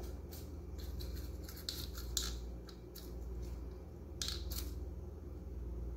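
Aluminium foil crinkling in a string of short, irregular crackles as a hand moves over and against it, over a steady low hum.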